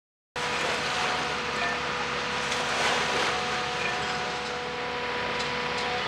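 Diesel engines of a Royal Navy Archer-class patrol boat running as it moves slowly through the harbour: a steady hum of several tones over a broad rushing noise. It starts abruptly about a third of a second in.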